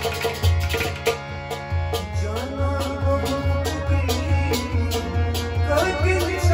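Harmonium playing sustained chords over percussion with a steady beat, about three beats a second. A man's voice starts singing about two seconds in.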